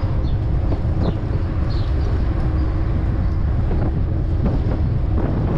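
Steady low wind rumble on the microphone of a moving bicycle, with a few faint high chirps and light clicks over it.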